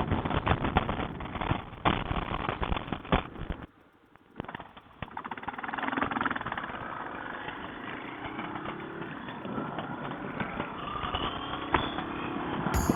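Dual-sport motorcycle engine running while under way, its pitch rising several times in the second half as it accelerates. The sound drops out briefly about four seconds in.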